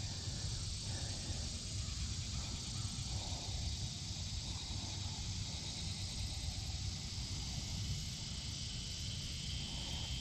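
Insects droning steadily in summer vegetation, a high, even hiss, with a low rumble underneath.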